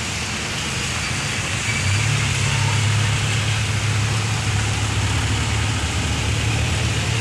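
Road traffic on a flooded street: a vehicle engine running with a steady low hum from about two seconds in, over a constant hiss of rain and water.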